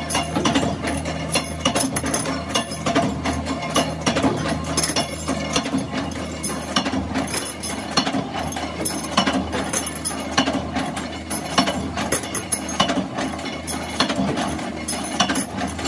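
Workshop machinery running: a steady low hum under a dense, irregular stream of mechanical clicks and clatter.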